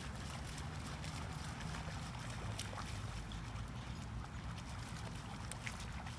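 German Shepherd splashing through shallow floodwater, its paws slapping the water in short, uneven splashes over a steady low rumble.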